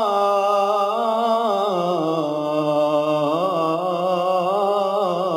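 A man's solo voice reciting the Qur'an in melodic, chanted style into a microphone. He holds one long drawn-out vowel, ornamented with wavering melodic turns, and steps down in pitch about a second and a half in.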